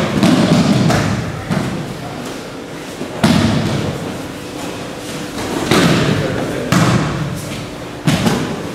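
Bodies landing on tatami mats as aikido students take breakfalls after throws: about six separate thuds in a reverberant hall, irregularly spaced, over background voices.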